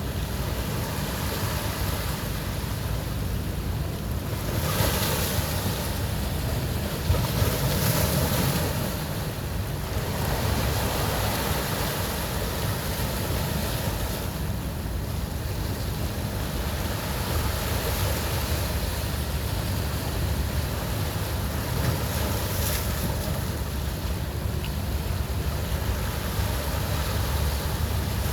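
Caribbean surf breaking and washing up a beach, a continuous rush with waves swelling louder about five and eight seconds in. A low rumble of wind on the microphone runs underneath.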